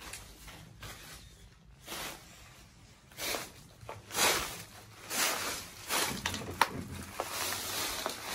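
Footsteps, about one a second, starting about three seconds in, with a couple of sharp clicks among them.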